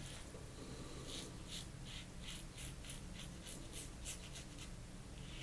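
Rockwell 6S safety razor on its mild #2 baseplate scraping through lathered stubble in short, faint strokes, about three a second, on an across-the-grain pass with some buffing.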